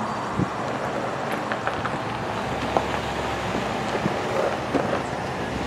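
Steady outdoor background noise with a low hum under it and a few faint ticks.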